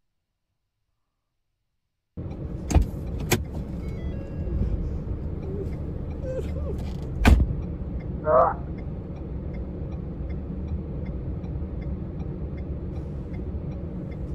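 Dead silence for about two seconds, then the steady low rumble of a car driving, heard from inside the cabin as dashcam audio. A few sharp clicks come through, and a brief wavering tone sounds about eight seconds in.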